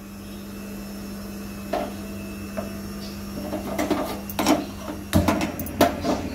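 Gas stove burner being lit: scattered clicks and knocks, then about five seconds in a cluster of clicks and the low rush of the burner flame starting up. A steady hum runs underneath.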